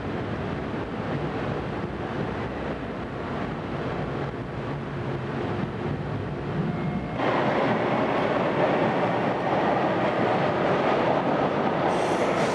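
Toronto subway train standing at a station platform with steady noise, which jumps suddenly louder about seven seconds in. A faint high whine comes in near the end as the doors are shut.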